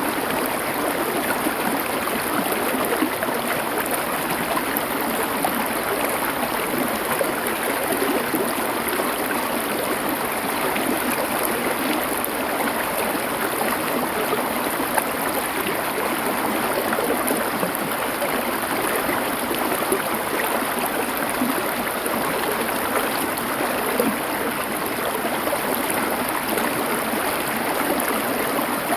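River water flowing in a steady, even rush, with no breaks or changes.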